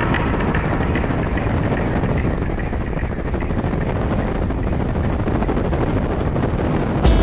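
Performance powerboat engines running at speed: a steady, dense engine noise made of rapid pulses.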